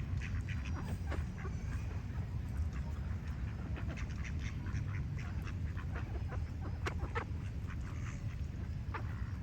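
Ducks quacking in many short calls, with small birds chirping, over a steady low rumble.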